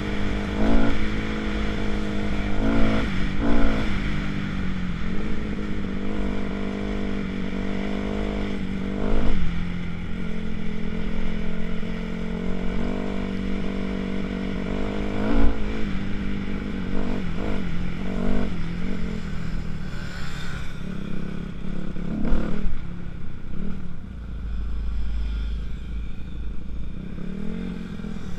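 2006 Kawasaki KX250F's single-cylinder four-stroke engine running under way on a dirt trail, its note rising and falling again and again as the throttle is opened and rolled off.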